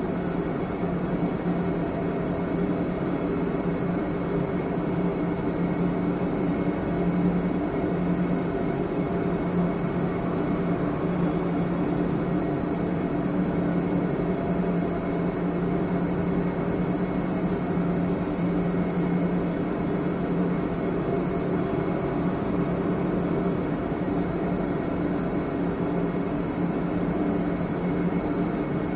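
A steady, unchanging drone of several held low tones over a hum of noise.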